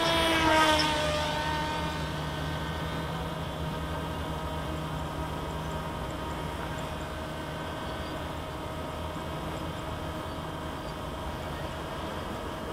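Electric motor and propeller of a C1 Chaser FPV flying wing droning steadily in flight, its pitch sliding down in the first second.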